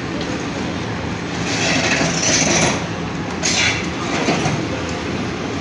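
Demolition excavator working on a concrete building, its engine running steadily, with two louder crashing bursts of breaking concrete and rubble, about one and a half seconds in and again near three and a half seconds.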